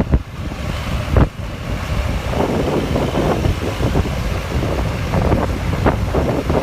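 Road traffic rumbling past, with wind buffeting the microphone and two sharp knocks near the start. No horn tune is heard.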